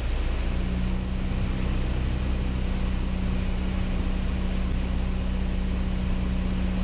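Piper Cherokee PA-28-180's four-cylinder Lycoming engine and propeller running steadily in flight, heard inside the cabin as a constant low drone; a steady low tone joins about half a second in.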